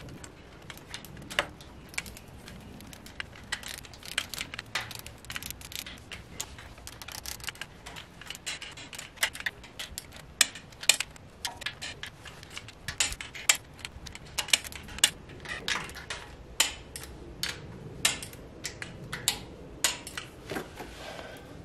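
Torque wrench ratcheting as the water pump bolts on a 7.3 IDI diesel's front cover are tightened to about 18 foot-pounds: many short, sharp clicks in quick runs, with the light clink of tool on metal.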